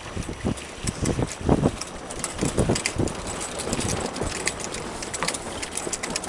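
Wind buffeting the microphone aboard a Sabot sailing dinghy under way, coming in uneven gusts, with scattered light clicks and knocks from the boat.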